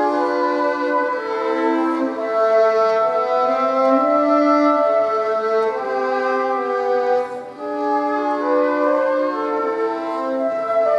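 Violin and flute playing a slow duet of long held, overlapping notes, with a brief drop in loudness about seven and a half seconds in.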